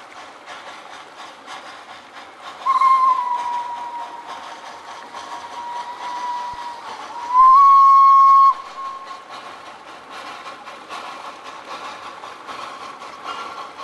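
Narrow-gauge steam locomotive's whistle: one long blast of about four seconds that sinks slightly in pitch, then a shorter, louder blast of about a second that cuts off sharply, over the steady noise of the train.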